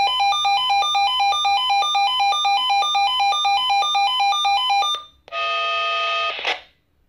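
Swissphone Quattro XLSi analog radio pager sounding its alert for a test alarm: a fast, repeating beep melody that jumps between a low tone and two higher ones (ABACABAC at 800, 1010 and 1200 Hz) for about five seconds. A second, noisier steady tone follows for about a second and stops abruptly.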